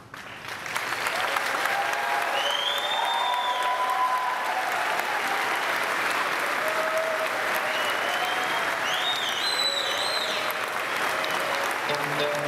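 Large audience applauding, breaking out suddenly about half a second in and going on steadily, with a few higher calls rising over the clapping.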